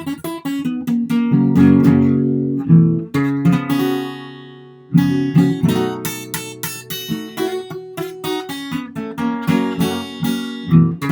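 Acoustic guitar, capoed at the 2nd fret, picking pentatonic licks in a blues-country style. The notes ring out and fade about four seconds in, then the picking starts again and runs on.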